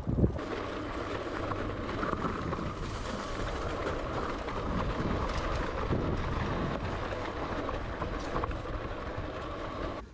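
Electric motorbike being ridden: a steady rumble of tyres and wind with a faint steady whine, cutting off suddenly near the end.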